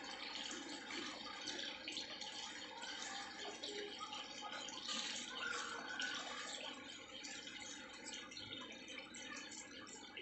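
Small scissors snipping through art paper, the sheet rustling in the hand, with many faint small snips over a soft paper hiss.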